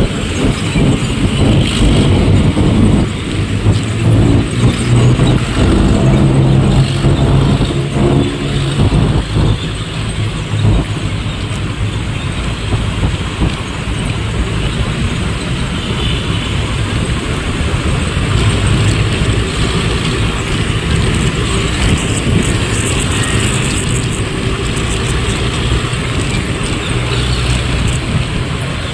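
Road traffic noise from riding in close traffic beside a small truck: an engine drone that shifts in pitch during the first ten seconds, then a steadier rush of road and wind noise.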